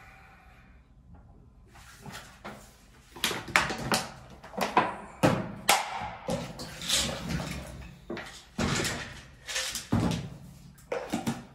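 Plastic bottle and protein shaker being handled at a kitchen sink: water poured from a large plastic bottle into the shaker, with a string of knocks and clatters from about three seconds in as the bottle, shaker and lid are set down and picked up.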